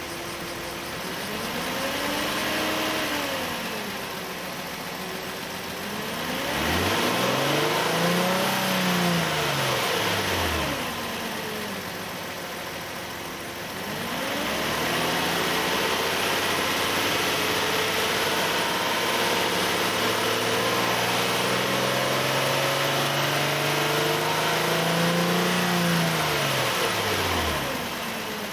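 A 2008 Nissan Elgrand's 2.5 L four-cylinder engine is revved from idle three times with the air-conditioning compressor engaged. The last rev is held high for over ten seconds. This demonstrates a strange noise that the owner says starts around 2000–2500 rpm only when the compressor is working.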